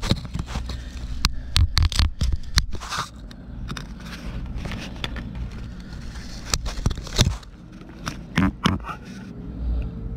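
Irregular scraping, clicks and knocks from work on a pickup's exhaust: hands, tools and body moving against metal and concrete. A steady low rumble runs underneath.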